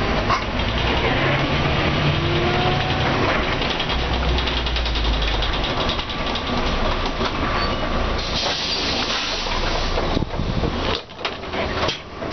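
Mercedes-Benz O405N bus's diesel engine and ZF automatic gearbox working hard under kickdown, heard from inside the bus, with the body and fittings rattling as it goes. The sound drops away briefly about eleven seconds in.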